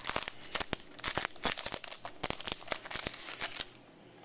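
Plastic wrapper of a baseball card pack being torn open and crinkled by hand, a dense run of quick crackles that dies away near the end.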